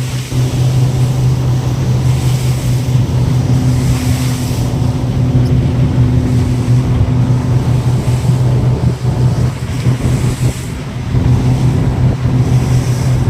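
Inshore lifeboat's motor running steadily at speed, with wind buffeting the microphone and sea water rushing past the hull.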